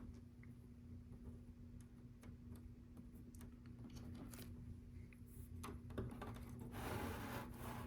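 Faint scattered clicks of small LEGO plastic pieces being handled and pressed into place, with a short rustle near the end, over a steady low hum.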